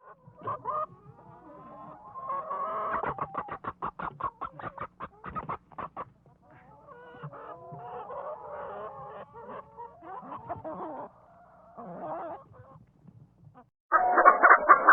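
Domestic chickens clucking and calling, with a fast run of short clucks in the first few seconds; a louder burst of calls starts abruptly near the end.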